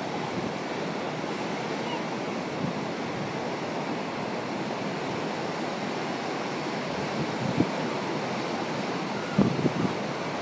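Ocean surf washing and breaking over rocks in a steady rush of noise, with a few brief thumps near the end.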